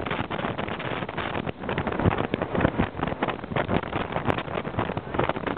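Jet boat running at speed through a river gorge: engine and rushing water under gusty wind buffeting the microphone.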